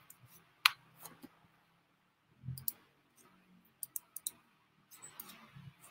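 Computer mouse clicking: about a dozen short, separate clicks scattered through with pauses between, the sharpest one under a second in, over a faint low hum.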